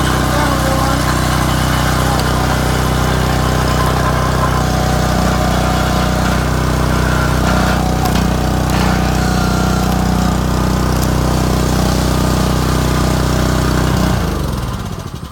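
Log splitter's small engine running steadily, then shut off about fourteen seconds in and winding down to a stop.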